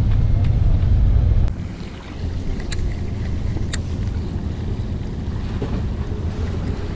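Wind buffeting the microphone with a heavy low rumble that drops off suddenly about a second and a half in, giving way to a steadier, lower rumble of wind and sea. A few sharp clicks come in the middle.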